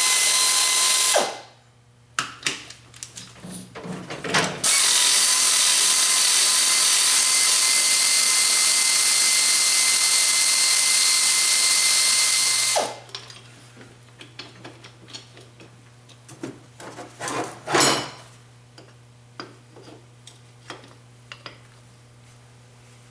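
A power drill runs for about a second and stops, followed by a few clicks. It then runs steadily for about eight seconds, spinning out the cylinder head bolts of a Wisconsin AENL air-cooled engine. Light metallic clicks and clinks of handling follow after it stops.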